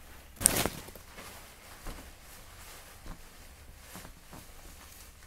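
Paper gown and exam-table paper rustling as a person pulls on compression stockings: a sudden loud rustle about half a second in, then a few faint knocks and rustles.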